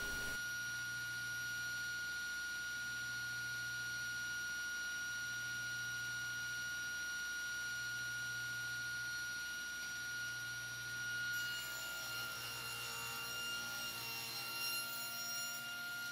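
Soft electronic background music: steady pure tones held over a low note that swells and breaks about every two seconds, shifting slightly near the end.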